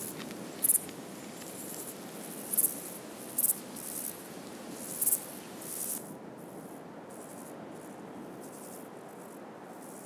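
Insects chirping in short, very high bursts about once a second over a steady soft hiss. About six seconds in, the sound changes to a quieter hiss with only faint chirps.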